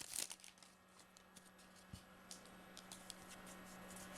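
Faint soft ticks of trading cards being handled and slid one behind another while being sorted, over a low steady hum.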